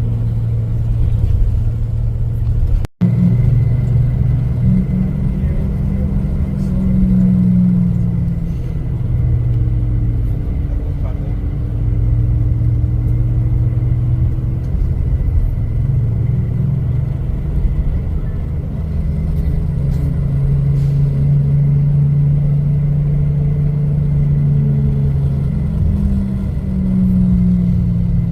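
Engine and road noise from inside a moving tour bus, the engine's pitch rising and falling as it changes speed, with a short break in the sound about three seconds in.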